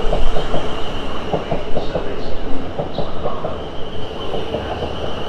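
A train running through the station, its wheels clattering over rail joints with a steady high-pitched whine over the rumble.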